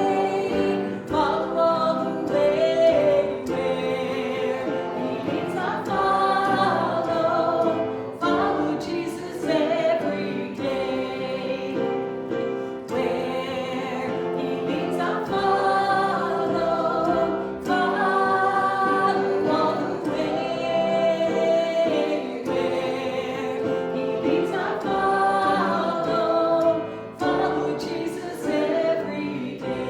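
A church congregation singing a hymn together.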